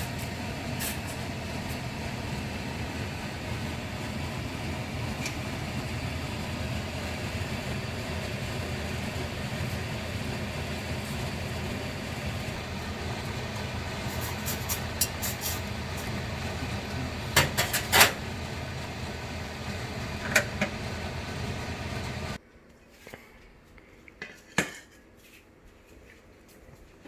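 A steady rushing noise with a handful of sharp clinks of dishes and utensils, most of them bunched past the middle. The rushing cuts off suddenly near the end, leaving quiet with a few light clicks.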